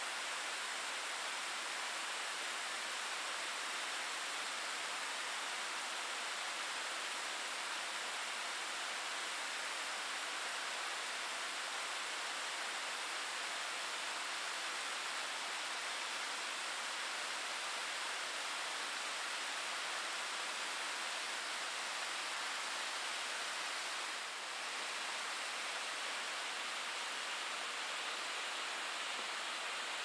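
Waterfall cascading down a steep rock face: a steady, even rush of falling water, with one brief dip in level a few seconds before the end.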